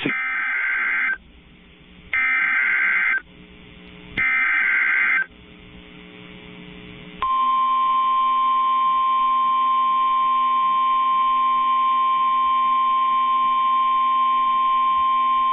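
NOAA Weather Radio Emergency Alert System header: three warbling bursts of SAME digital data tones, each about a second long and about a second apart, encoding a tornado warning. About 7 seconds in, the steady single-pitch 1050 Hz attention tone begins and holds.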